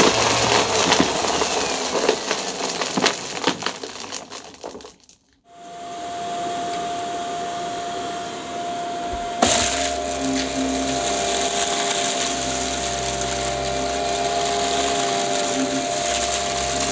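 Upright vacuum cleaner sucking up crunchy debris, with dense crackling clicks as the bits rattle up through the brushroll; the crackling dies away about five seconds in. A vacuum motor then runs steadily with a whine, and it gets louder and busier about nine seconds in.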